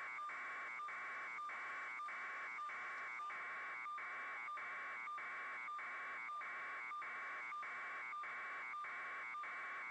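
Electronic buzz pulsing evenly a little under three times a second, over a constant high tone that never changes.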